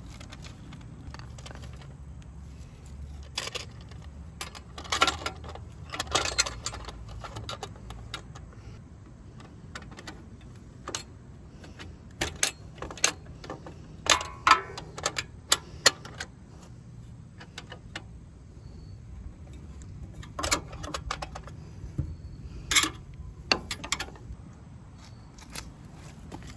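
Screwdriver and the small metal brackets and screws of saddlebag filler panels being handled and fitted: scattered metallic clicks, taps and rattles coming in clusters, over a low steady hum.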